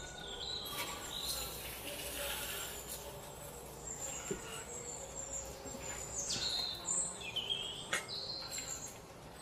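Marinated rice poured into a hot aluminium kadai of fried spices and cashews, a brief hiss as the grains slide in, then a ladle stirring with a few scrapes and clicks. Birds chirp in the background, with short falling whistles a little after the middle.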